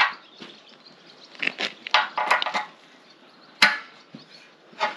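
Steel tyre levers working the bead of a large implement tyre onto a steel wheel rim: metal scraping and clattering against the rim and rubber. A cluster of clatters comes around two seconds in, then a sharp knock a little after three and a half seconds and another near the end.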